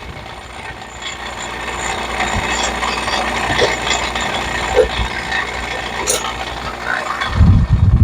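A motor-driven shop tool running steadily with a low hum, growing louder, with scattered metallic rattles and clicks.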